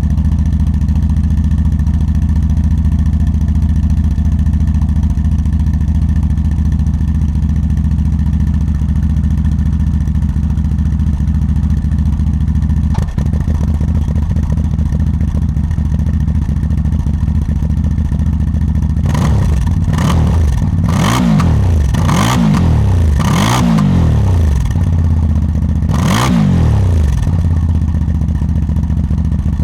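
CF Moto ATV engine idling steadily, then revved in a series of quick throttle blips in the last third, the pitch rising and falling with each one.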